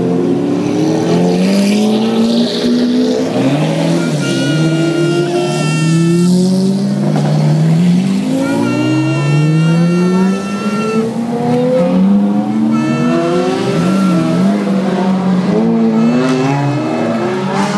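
Lamborghini supercars accelerating past one after another, their engines revving up in repeated rising sweeps a second or two apart.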